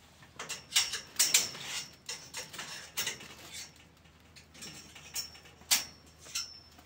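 Irregular sharp metallic clicks and clinks, several of them ringing briefly, from hand work on a greenhouse's steel hoop pipes and aluminium ladders.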